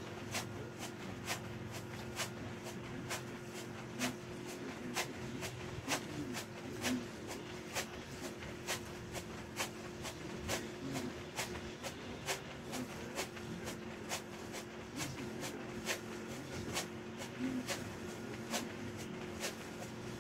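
Sneakers landing on a foam exercise mat during continuous jumping jacks: sharp taps in a steady rhythm of about two to three a second, over a steady low hum.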